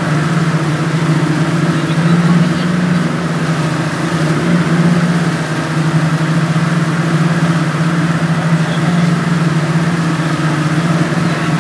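Twin Yamaha outboard motors on a speedboat running steadily at speed: a constant low engine drone, with water churning and rushing in the wake behind them.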